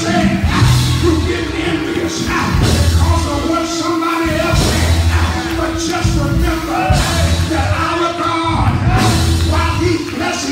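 A preacher singing and hollering into a microphone over live church music, with a held note under him and a low bass note coming back about every two seconds.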